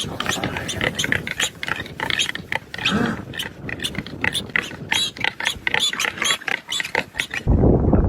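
Wild boar in distress under a leopard's attack, a rapid rattling run of grunts with squeals mixed in. Near the end, wind rumbling on the microphone takes over.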